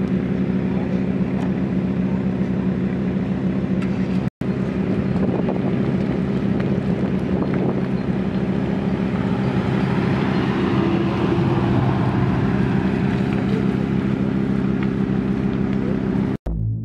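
Several supercar engines running at low speed as a line of cars creeps along, a steady deep drone with a little exhaust crackle on top. The sound breaks off for an instant twice, about four seconds in and near the end.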